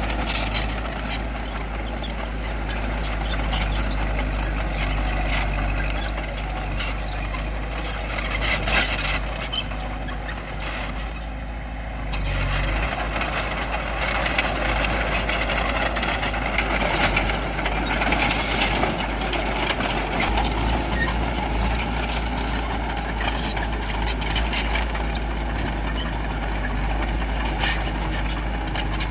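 Bulldozer working, its diesel engine running steadily under a low hum, with frequent knocks and clatter throughout.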